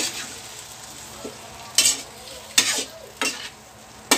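A long metal ladle scrapes and stirs okra, chicken liver and gizzard in a hot metal wok, with about four sharp scrapes. Under the scrapes runs a steady sizzle of the food frying in its marinade.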